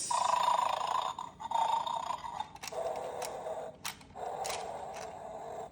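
Electronic game's small speaker playing a recorded snore, four rhythmic breaths about a second each, which is taken for the dog snoring. A few light clicks from the game's pieces are heard in the middle.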